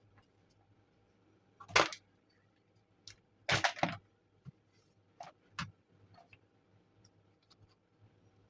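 Clicks and knocks of small hard objects being handled. The loudest knock comes about two seconds in, a quick cluster follows a little later, and a few fainter ticks come after.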